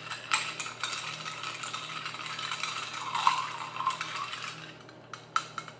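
A screwdriver cocktail being mixed: ice and liquid rattling steadily for about five seconds, with sharp clinks at the start and a few more near the end.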